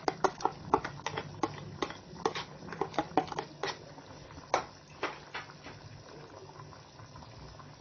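A spoon clicking and scraping against a bowl as tomato paste is knocked off into a cooking pot: a quick run of sharp clicks, then only a few more after about four seconds. A steady low hum runs underneath.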